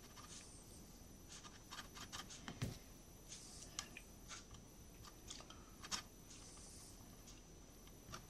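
Faint, scattered rubbing and light clicks of a fingertip spreading PVA wood glue over a laser-cut wooden part, with two short soft rubbing passes and small taps as the part is handled.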